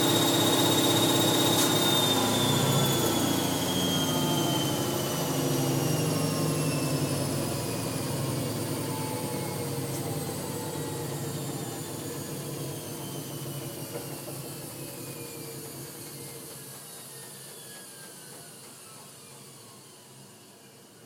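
Hoover 1100 De Luxe washing machine at the end of its final spin. A steady high motor whine starts falling in pitch about two seconds in, and fades slowly as the drum coasts down.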